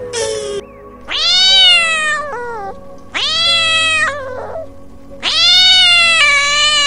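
Cat meowing: a brief call at the start, then three long, drawn-out meows, the last still going at the end.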